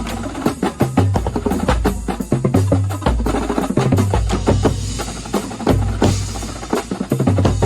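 Drum corps percussion section playing a fast ensemble passage: rapid snare and tenor strokes over tuned bass drums stepping through different pitches.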